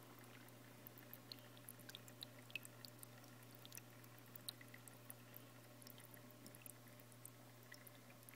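Near silence. A faint steady hum and scattered tiny ticks and drips, typical of a nano reef aquarium's pump and water movement.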